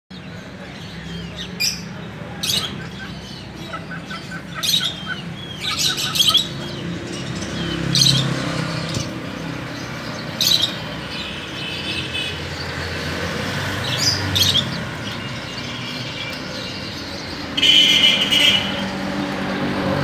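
Zebra finches calling in a cage: short, sharp, nasal calls come every second or few, with a longer, louder run of calls near the end. A steady low rumble runs underneath.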